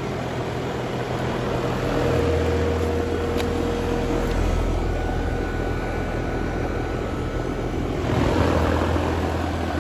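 Residential heat pump outdoor unit running just after it kicked on: steady whoosh of the condenser fan with the compressor's low hum, which grows stronger about two seconds in.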